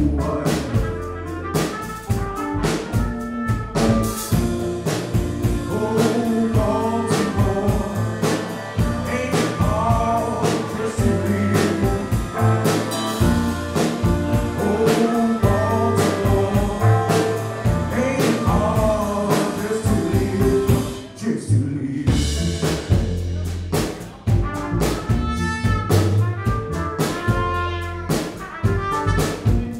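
Live band playing with electric guitar, upright bass, cello, drum kit and trumpet, the drums keeping a steady beat. The music drops out briefly about two-thirds of the way through, then comes back in.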